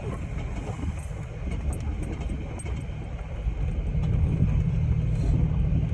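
Off-road vehicle driving, a low, continuous engine and tyre rumble that grows louder and steadier about four seconds in.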